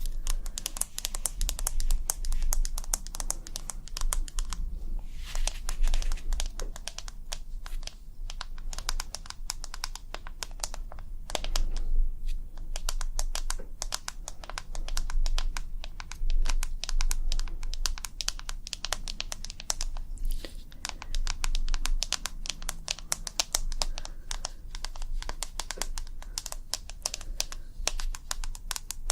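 ASMR tapping: a dense, irregular stream of light, quick clicks, like fingertips or nails tapping rapidly on an object, over a faint steady low hum.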